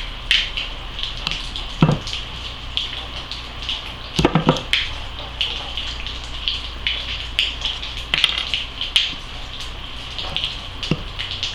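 Flat-tip screwdriver prying at the plastic top of a disposable Bic lighter: a run of small clicks and scrapes, with a louder cluster of knocks about four seconds in.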